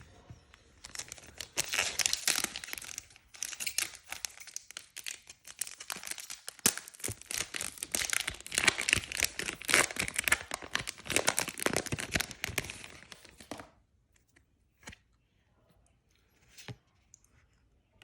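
Trading-card booster pack wrapper being torn open and crinkled, a dense crackling rustle lasting about twelve seconds that stops suddenly. A couple of soft clicks follow near the end.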